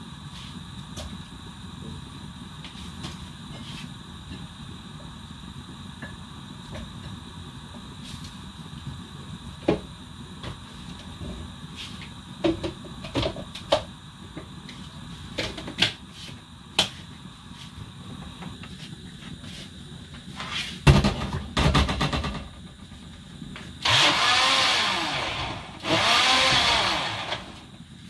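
Kitchen handling sounds: a steady low hum under scattered clinks and knocks of items being handled on the worktop. About twenty seconds in there is a loud low rumble, then two loud, noisy bursts of a few seconds each near the end.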